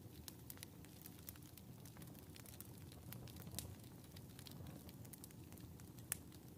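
Wood fire burning in a wood stove, heard faintly: a soft low rumble of flames with scattered small crackles and pops, two sharper pops about midway and near the end.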